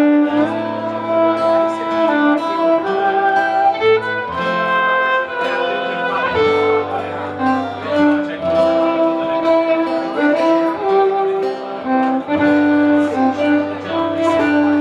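Violin playing the melody over acoustic guitar accompaniment, in an instrumental passage of a live folk-rock song.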